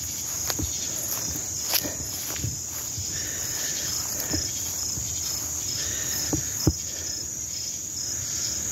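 Crickets chirping steadily in a high, even pulsing trill, with a few soft thumps.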